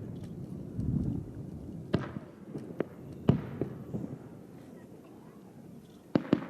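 Distant aerial firework shells bursting: sharp reports at irregular intervals, the loudest about three seconds in and a quick pair near the end, with low rumbling booms echoing between them.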